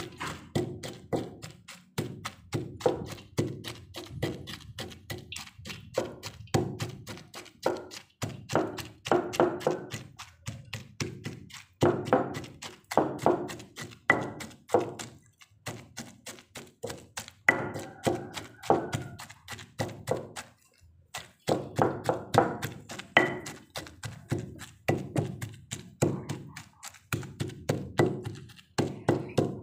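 Pestle pounding and grinding a wet spice paste of chillies, shallots, garlic and tomato in a stone mortar (cobek): rapid knocks, about three or four a second, in runs broken by brief pauses.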